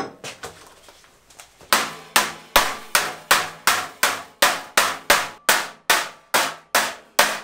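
Hammer blows on thin sheet steel clamped over a bench edge, bending it over at a right angle: a steady run of sharp metallic strikes, nearly three a second, each ringing briefly, starting a little under two seconds in.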